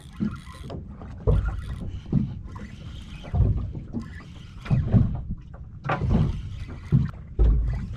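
Water lapping and slapping against the hull of a small open boat, with wind on the microphone: an irregular run of low thumps, about one a second.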